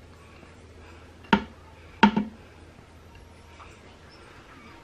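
Two short knocks about 0.7 s apart as softened butter is scraped off a plate with a silicone spatula into an Instant Pot's stainless-steel inner pot, over a faint steady low hum.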